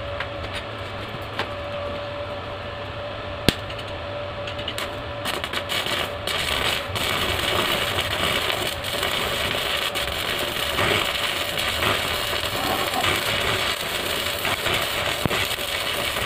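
Electric arc (stick) welding crackling and sizzling on steel, starting about five seconds in and getting louder, over a steady hum.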